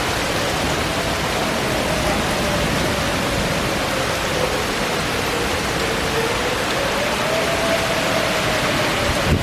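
Outdoor tornado warning siren wailing, a faint tone that slowly rises and falls in pitch, under a steady hiss of rain. A brief low thump comes near the end.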